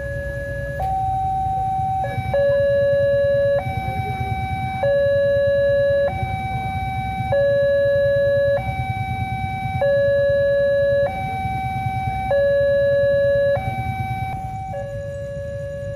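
Indonesian railway level-crossing warning alarm sounding a two-tone electronic signal: a higher and a lower tone alternate, each held about a second and a quarter, over a low rumble. It is the warning that the barriers are down for an approaching train.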